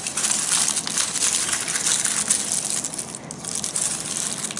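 Aluminium foil crinkling and crackling as it is crumpled and pressed by hand around the bone end of a roast chicken leg.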